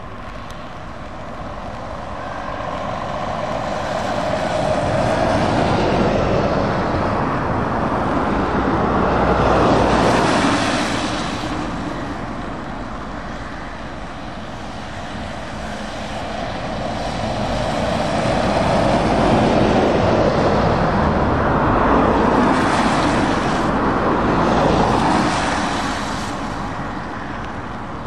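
Trucks and vans passing one after another on a wet road, engine rumble and tyre hiss swelling and fading as they go by, with two loud passes.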